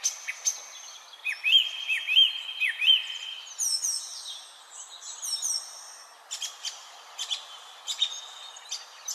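Several songbirds singing over a steady hiss. About a second in, a whistled note is repeated four times. This is followed by a run of high falling whistles, and then short, sharp calls.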